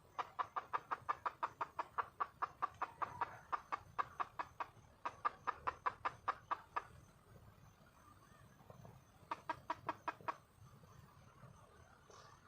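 Junglefowl hen giving a long run of rapid clucks, about six a second, then a pause and a second, shorter burst of clucks: the call of a hen seeking a mate.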